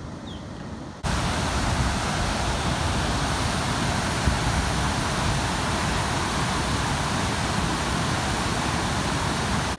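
Water rushing out through the open gates of a concrete dam spillway: a loud, steady, even rush that cuts in abruptly about a second in.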